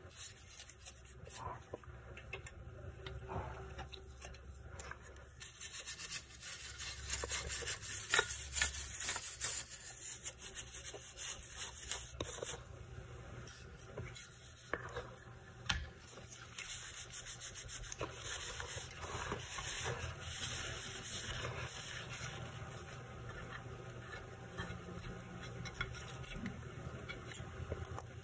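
Irregular rubbing and scraping against the parts of a graphics card being cleaned, loudest for a few seconds about six seconds in, with scattered small ticks.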